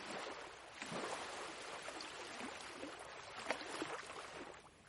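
Soft recorded ocean waves washing in a steady hiss, swelling about a second in and fading away just before the end.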